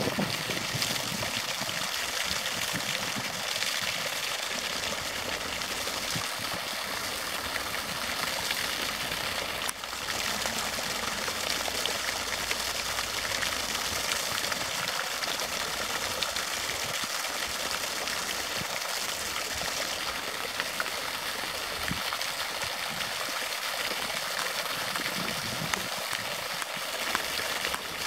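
Water of a shallow stream running and splashing over a small drop, steady throughout.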